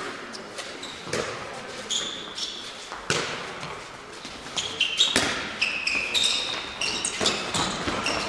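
Handball play on an indoor court: the ball knocking on the floor and into hands as it is bounced and passed, with short high squeaks of sports shoes on the court floor.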